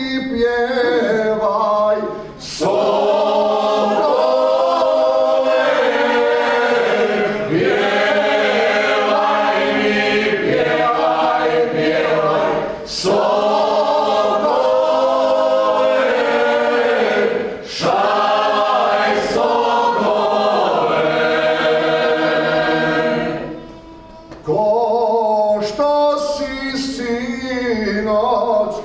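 A small unaccompanied vocal group singing a traditional Croatian folk song in the old rural style (izvorno pučko). It is sung in long phrases with short breaths between them, and there is a pause of about a second near the end.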